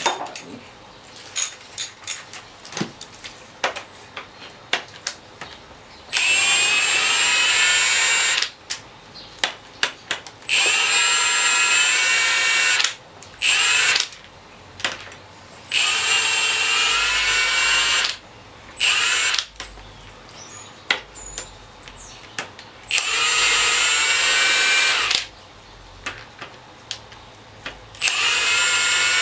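Cordless power tool running in repeated runs of about two seconds, backing out engine bolts; its motor whine rises in pitch at the start of each run. Short metallic clicks and taps of hand tools and parts fall in the gaps between runs.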